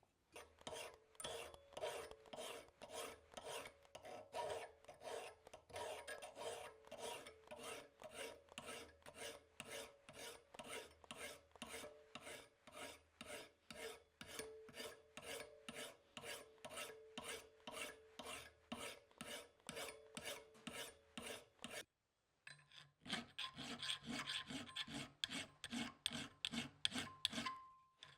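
Hand file rasping back and forth on a steel knife blade in even strokes, about two a second. It breaks off briefly about 22 seconds in, then resumes with a brighter, higher rasp.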